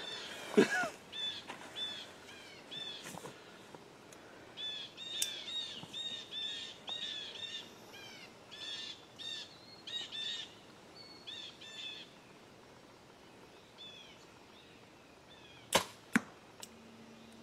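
A bow shot near the end: a sharp crack as the arrow is released, then a second crack under half a second later as it strikes the foam 3D deer target. Before the shot, a songbird sings short repeated chirping notes for several seconds.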